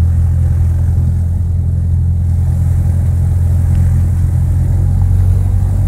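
Piston engine of a light single-engine aircraft running in a steady low drone, heard from inside the cabin.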